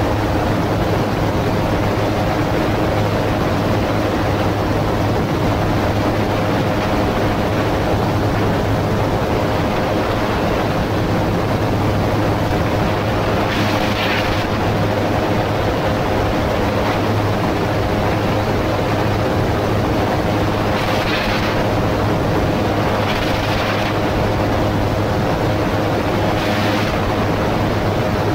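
AutoGyro MTOsport gyroplane in cruise flight: the steady drone of its piston engine and pusher propeller under a constant rush of wind. A few short, louder hisses of air come through, about halfway and then three times near the end.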